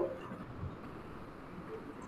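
Faint steady background noise of an open microphone on a video call, with a short tone right at the start.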